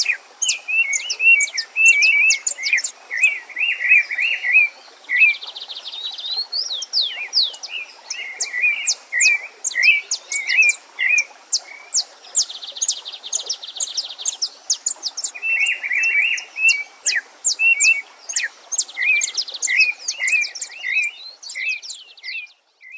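Several songbirds singing together: quick repeated chirps, buzzy trills and high down-sweeping whistles, over a faint steady rush of a stream. It all cuts off suddenly near the end.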